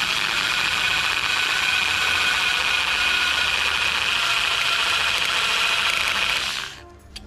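Electric drill with a 5 mm bit running steadily as it drills out a rivet in a steel head gasket, a steady whine that stops about six and a half seconds in.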